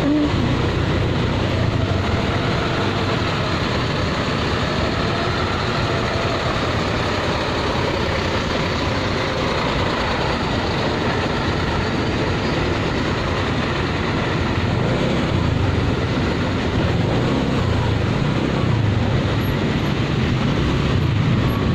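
Steady traffic noise from engines running close by: truck engines and a motorcycle creeping between them in stop-and-go traffic, with faint engine tones wavering up and down.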